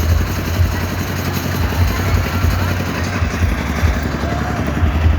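A large engine running steadily with a deep, uneven low rumble.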